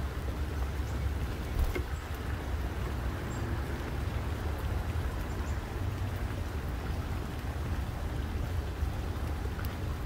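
Steady low rumble and hiss of outdoor background noise, with a couple of faint sharp clicks.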